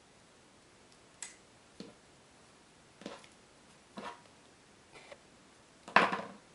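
Short taps and paper rustles of hands handling small paper embellishments and pressing them onto a cardstock scrapbook page, about six separate handling sounds, the loudest near the end.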